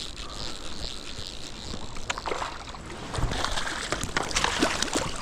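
Water splashing and sloshing close by, over the steady rush of a stream; the splashes come thicker and louder in the second half.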